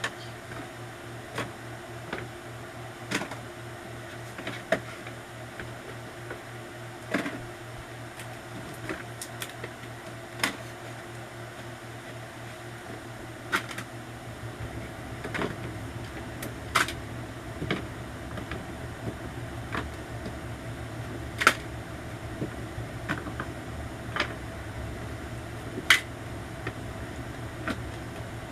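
Irregular clicks and clacks of plastic phone cases being pulled down off a wall and handled, a few sharper knocks among them, over a steady low hum.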